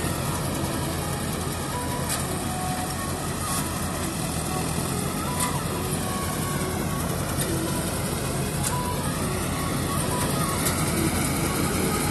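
Combine harvester running steadily while cutting paddy: a continuous engine drone mixed with dense machinery noise and a few sharp clicks.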